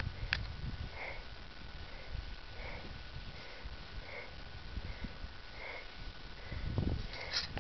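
A person breathing hard close to the microphone, quick regular breaths a little more than one a second, over a low rumble of wind on the microphone.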